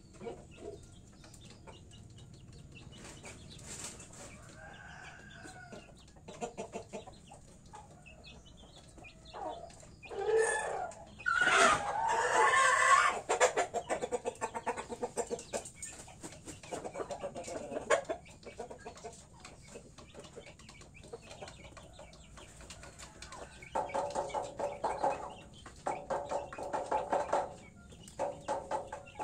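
Chickens clucking and calling on and off. About ten seconds in comes a loud burst of squawking and wing flapping lasting a few seconds. Near the end a run of repeated calls follows.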